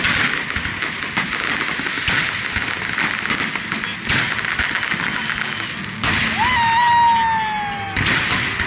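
Fireworks display: aerial shells bursting with dense, continuous crackling and popping. About six seconds in, a long high tone sets in and slowly sinks in pitch for a second and a half.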